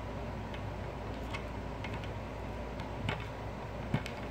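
A few scattered small clicks and taps of a metal key being worked into the plastic lock at the bottom of a terrarium's sliding glass doors.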